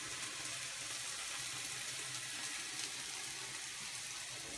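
Yellowfoot mushrooms and garlic frying in oil in a pan: a steady sizzle with faint crackling.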